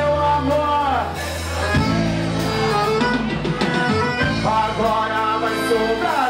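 Live band playing, with accordion, electric bass, drums and keyboard.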